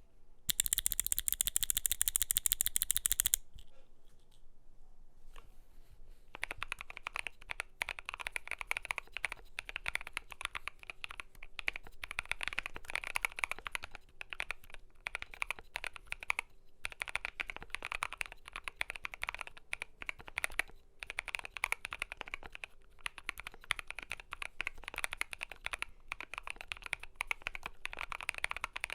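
Typing on a custom 65% mechanical keyboard with lubed Gazzew Boba U4T tactile switches, PBT keycaps and a polycarbonate plate: a dense run of irregular key clicks with short pauses, starting about six seconds in. Near the start, a much louder and harsher burst of rapid clicking lasts about three seconds.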